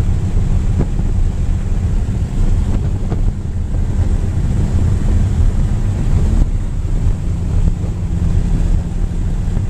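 Inside a car's cabin at highway speed: a steady, loud low drone of road and engine noise, with wind buffeting the microphone.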